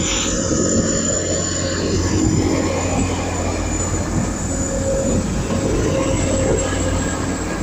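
TransPennine Express Class 185 diesel multiple unit moving slowly past on the rails: steady diesel engine drone with wheel and rail noise.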